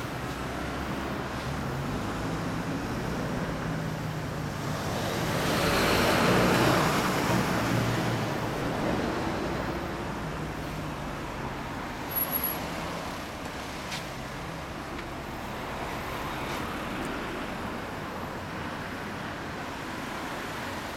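Road traffic going by, one vehicle passing close and swelling loudest about six seconds in before fading.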